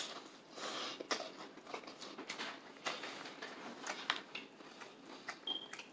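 Close-up eating of crispy fried chicken: the crunchy breaded crust crackling in irregular sharp clicks as it is bitten and chewed, with a brief high squeak near the end.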